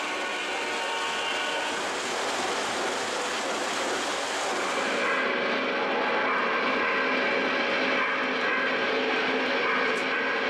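O gauge model steam locomotive running on the layout: a steady drone of motor and wheels on the three-rail track, with held tones from the locomotive's sound system. A high hiss drops away about halfway through.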